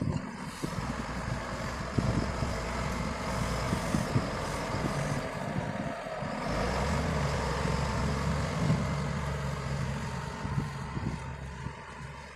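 Diesel engine of a heavy road-construction machine running steadily. Its note steps up and grows a little louder about six and a half seconds in, then eases off near the end.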